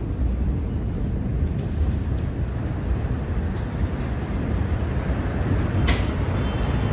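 Steady low rumbling noise of wind buffeting a phone microphone, with one brief sharp click about six seconds in.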